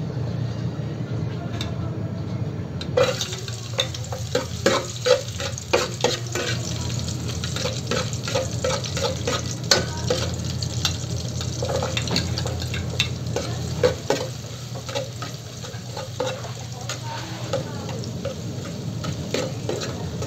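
Chopped onion and garlic sizzling in hot oil in an aluminium pot, the sizzle starting suddenly about three seconds in, with a metal spatula clinking and scraping against the pot as they are stirred. A low steady hum runs underneath.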